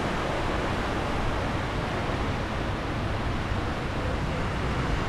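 Small waves breaking and washing up a sandy beach, heard as a steady rush, with a low rumble of wind on the microphone.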